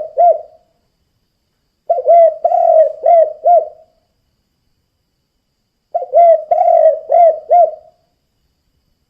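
Spotted dove (tekukur) cooing: the end of one phrase, then two full phrases of several low coo notes, each about two seconds long and about four seconds apart.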